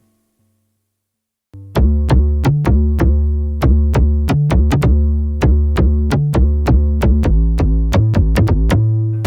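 Silence for about a second and a half, then an IK Multimedia UNO Synth Pro analog synthesizer starts a sequenced bass line with stepping notes. It plays over a drum-machine beat of sharp, clicky hits.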